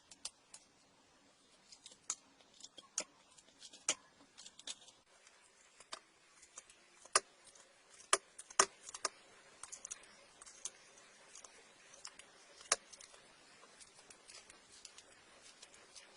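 Scattered, irregular sharp clicks and taps of small objects being handled, a few louder ones in the middle.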